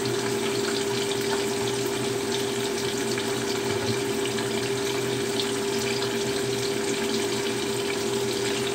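Tofu frying in hot oil in a pan: a steady sizzle with fine crackles, over a steady low hum.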